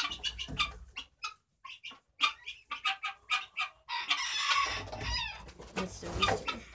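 Guineafowl giving rapid, harsh repeated calls, with a burst of wing flapping about four seconds in as one flies up.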